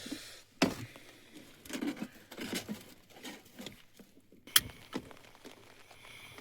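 Irregular light knocks, clicks and rustles of hands working with cooking utensils and ingredients while preparing pakora batter, with one sharper knock about four and a half seconds in.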